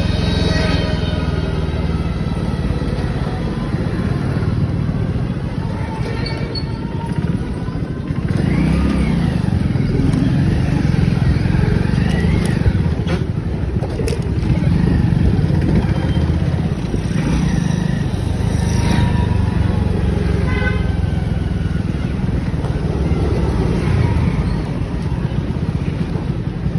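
A two-wheeler riding through city traffic: its engine and road noise run steadily, and other vehicles' horns sound a few times.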